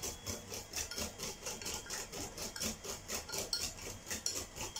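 A spoon stirring crêpe batter in a glass bowl, quick even scraping strokes about five a second.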